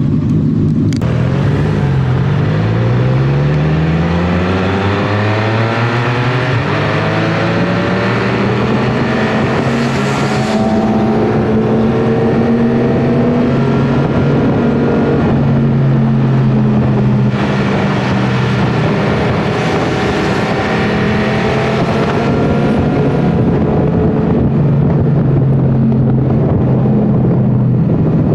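Motorcycle engine pulling away from a stop, its pitch climbing steadily for several seconds and then holding at a fairly even highway speed. Wind rush grows over it and swells louder at times.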